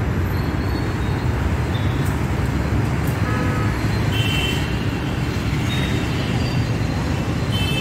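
Steady rumble of city road traffic, with a few brief high beeps from passing vehicles.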